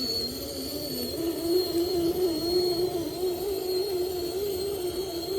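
Electric motor of an RC off-road crawler whining under load, its pitch stepping up about a second in and then wavering around one note.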